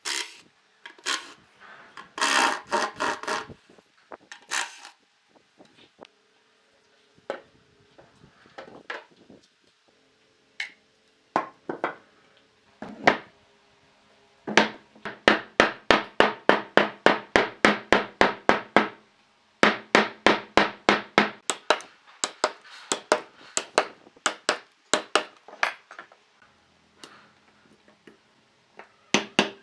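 A cordless impact driver fitted with a drill bit runs in short bursts, boring holes into a solid-wood board. Then come long runs of sharp, even knocks, about five a second, as a steel chisel chips bark off a log.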